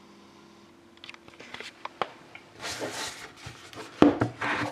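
A shrink-wrapped hockey card box being handled: plastic wrap crinkling and rustling with scattered clicks, and a thump about four seconds in.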